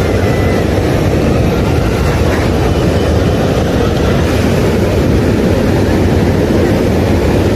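Steady wind noise on the microphone, a loud, even, low rumble, with faint distant voices.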